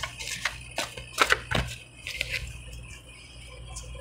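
A deck of oracle cards being handled and shuffled by hand: a run of light card flicks and taps over about the first two seconds, then only faint room noise.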